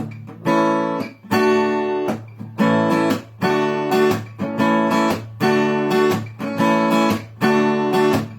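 Acoustic guitar strumming chords in a steady rhythm, about one and a half strokes a second, each chord ringing on: the instrumental intro of a song.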